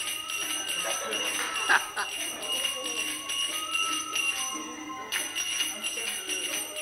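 Fast, shimmering jingling of a belly dancer's coin-and-sequin costume as she shimmies, over music; the jingling stops briefly about two-thirds of the way through.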